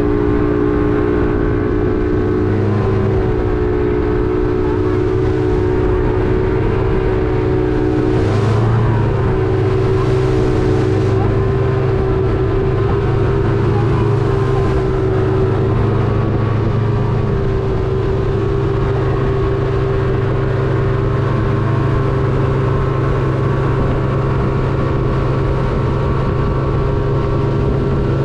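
Yamaha 200 hp outboard motor running steadily at speed, a continuous droning hum that shifts slightly in pitch a couple of times, over the rush of wind and water. There are brief swells of hiss about eight to eleven seconds in.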